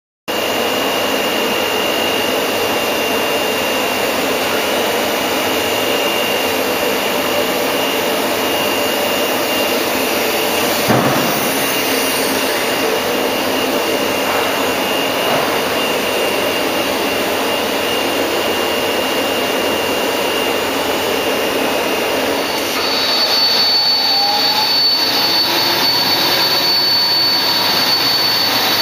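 Biesse Skipper 100 CNC panel boring machine running, a steady mechanical noise with a high whine. There is a single knock about eleven seconds in. From about twenty-three seconds it grows louder and the whine shifts higher.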